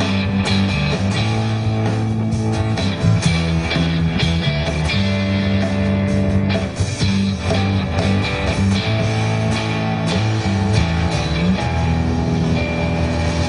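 Live rock band playing an instrumental stretch: guitars strumming over bass and drums.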